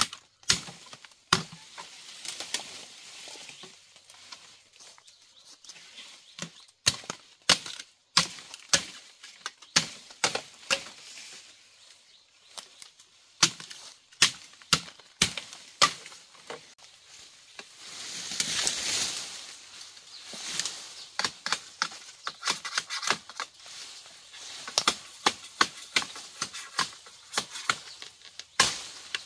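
Machete chopping into bamboo stems: repeated sharp knocks, often in quick runs, with leaves and canes rustling for a couple of seconds about two-thirds of the way through.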